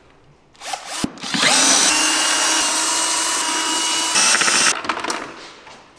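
Cordless ratchet whirring, undoing a bolt on a motorcycle's bodywork. A few clicks as it is set on, then about three seconds of steady, high whining run before it stops.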